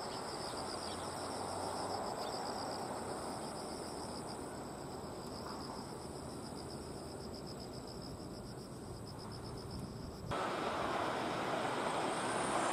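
Insects trilling, a rapid pulsed chirp with a higher steady note above it, over a steady outdoor rush. About ten seconds in, the sound cuts abruptly to the louder running noise of an approaching Tobu 8000 series electric train.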